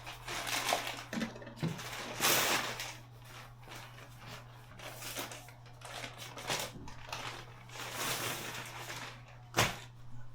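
Irregular rustling and handling noises, with a sharp knock about nine and a half seconds in, over a faint steady hum.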